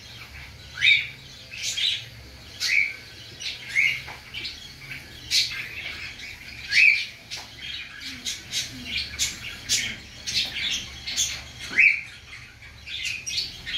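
Young pigeons peeping: short, high chirps, some dropping in pitch, repeated about once or twice a second, over a faint steady low hum.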